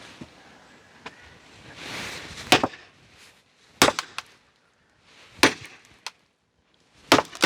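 Four heavy hammer blows, about a second and a half apart, driving a steel log-splitting grenade wedge into a wet log that is splitting.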